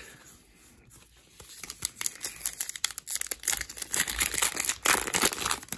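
Foil wrapper of an Upper Deck hockey card pack crinkling as it is handled and torn open by hand. It starts about a second and a half in and grows louder toward the end.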